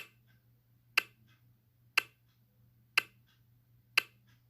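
Countdown clock-tick sound effect: sharp ticks exactly once a second, five in all, each followed by a fainter click, over a faint steady hum.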